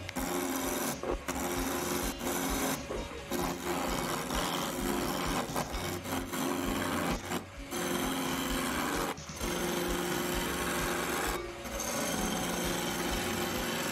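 A metal turning tool cutting a spinning poplar blank on a wood lathe: a steady scraping hiss in long passes, broken by about five brief pauses when the tool comes off the wood, over the lathe's steady hum.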